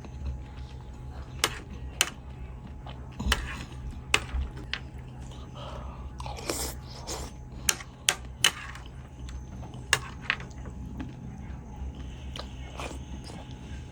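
A person chewing and biting blood pudding close to the microphone, with irregular sharp crunches and clicks every second or so over a steady low hum.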